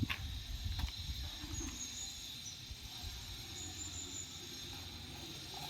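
Outdoor ambience: a steady low rumble with a couple of knocks near the start and faint high chirps now and then.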